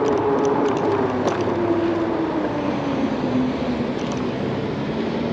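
Mokwheel e-bike's electric motor whining over tyre and wind noise, its pitch falling slowly and steadily as the bike slows down.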